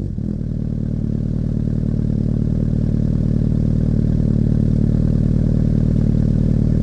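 Honda CBR1000RR SC57's inline-four engine idling steadily through an Arrow aftermarket exhaust with a carbon-fibre silencer, having just dropped back to idle from a rev right at the start.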